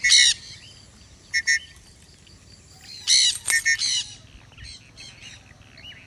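Sun conures giving harsh, high-pitched squawking calls in short bursts: one at the start, two about a second and a half in, a loud run of calls from about three to four seconds in, then fainter calls.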